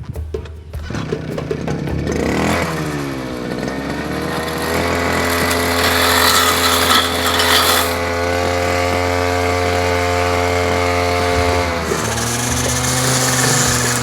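Petrol brush cutter (grass cutter) engine speeding up, its pitch rising over a couple of seconds, then running steadily at high speed. Near the end it drops to a lower steady speed.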